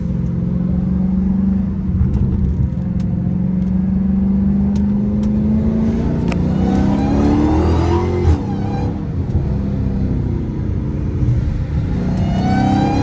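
Dodge Charger Hellcat Redeye's supercharged 6.2-litre HEMI V8, fitted with an aftermarket cold air intake, accelerating under throttle as heard from the cabin, the supercharger whine climbing with the revs. The pitch climbs steeply up to a sharp jolt about eight seconds in, drops at the gear change, and rises again near the end.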